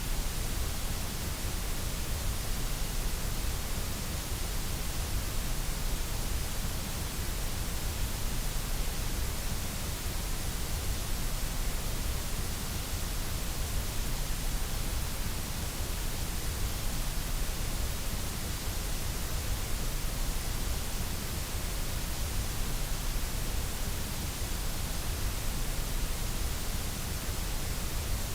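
Steady electronically generated white noise: an even, unchanging hiss across the whole range.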